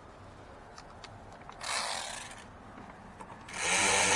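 Small cordless power tool driving a bolt through an 8 mm socket. The motor spins briefly about halfway in, then starts a longer, louder whining run near the end.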